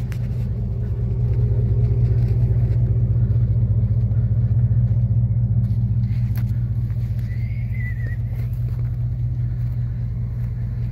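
Pickup truck engine idling steadily, a deep even hum.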